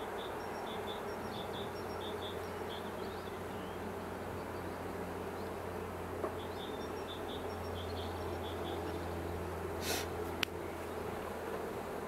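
Honeybees buzzing around an opened hive, a steady hum of many bees. Faint high chirps repeat in the background, and two short clicks come near the end.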